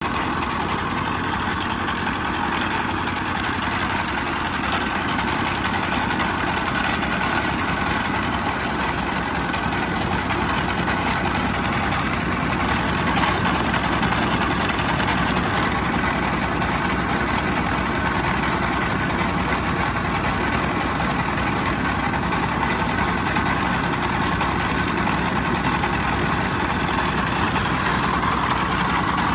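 Mobile rice milling machine running steadily, its engine and milling gear making a loud, constant mechanical noise.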